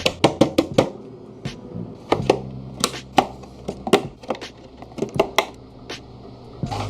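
Irregular sharp clicks and knocks of hard computer parts being handled and fitted together, thickest in the first second, over quiet background music.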